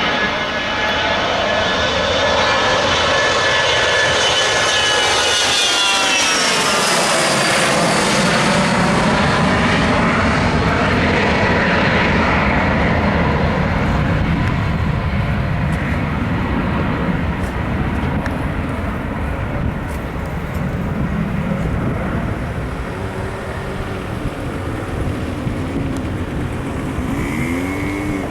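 Jet whine and roar of a Dassault Falcon 900B's three turbofan engines as the aircraft passes close by. A whine of many high tones falls in pitch as it goes past, then a steady jet roar slowly eases off.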